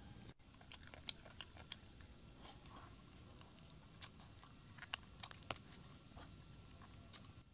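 Someone eating a cooked chicken leg: chewing and biting the meat, with scattered sharp clicks and smacks of the mouth over a faint steady hiss.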